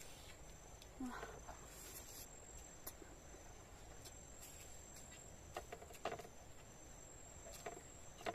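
Crickets chirping steadily in the background, a high continuous trill with regular pulses, while a few soft clicks and smacks of eating come through every second or two.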